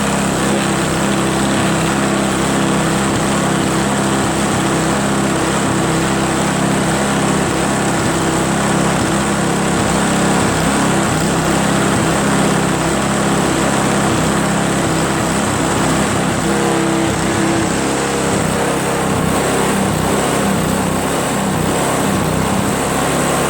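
Craftsman 522 single-stage snowblower's four-stroke engine running steadily, now running after water was drained from its tank and fuel lines and the carburetor cleaned.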